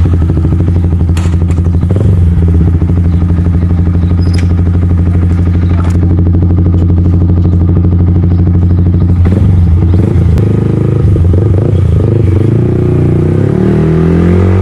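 Yamaha MT-15's single-cylinder engine through an aftermarket full-system exhaust, idling steadily, then revving with its pitch rising and falling from about ten seconds in.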